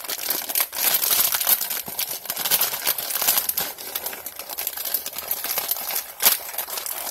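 Thin plastic bag crinkling and crackling as it is handled and tipped to pour crunchy salad-topping strips, with one louder crackle near the end.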